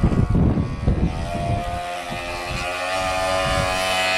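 A radio-controlled model boat's motor running with a steady whine, under an irregular low rumble.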